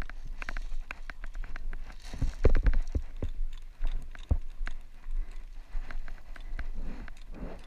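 Footsteps on a sandy dirt trail with dry grass brushing against clothing and gear, an irregular run of knocks and thumps, the heaviest about two seconds in.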